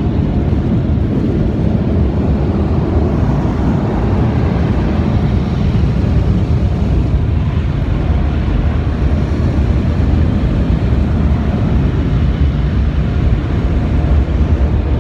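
Automatic tunnel car wash machinery, with its spinning foam wash brushes working along the car, heard from inside the car's cabin as a loud, steady, low noise.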